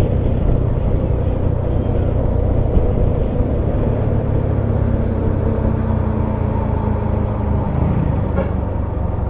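Engine and exhaust of an ALS intercity bus running steadily with a low rumble.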